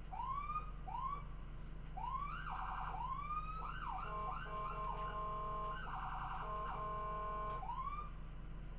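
Ambulance electronic siren cycling through its patterns: short rising whoops about once a second, a fast warbling yelp, then a long steady tone broken by another quick warble, and a final rising whoop near the end. A low steady hum runs underneath.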